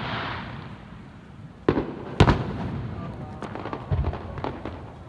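Aerial firework shells bursting. A crackling tail fades at first, then two sharp bangs about half a second apart come near the middle, followed by lighter pops and crackles.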